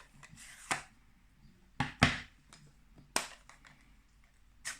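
A handful of separate sharp clicks and taps as craft supplies are handled and set down on a tabletop, the loudest about two seconds in.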